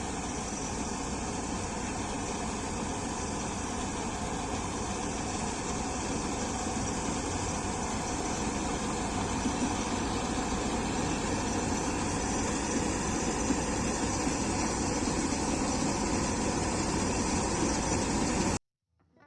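Combine harvester running steadily, a dense even mechanical noise that grows slightly louder and then cuts off abruptly near the end.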